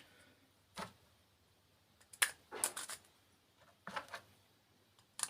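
Xbox 360 controller and its plastic battery holder being handled: about five short plastic clicks and knocks, spread unevenly, with quiet between them.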